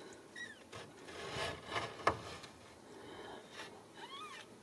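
Ragdoll kittens mewing faintly: a few short, high mews that rise and fall, the clearest near the end. Soft rustling and a single sharp click come about two seconds in.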